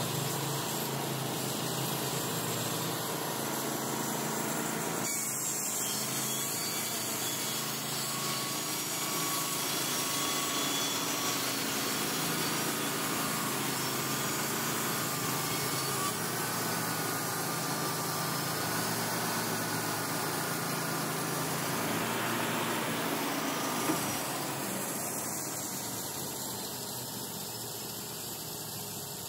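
Wood-Mizer LT35 HD sawmill running steadily as its saw head is driven down the track and back. A high whine rises about five seconds in and sinks back down near the end.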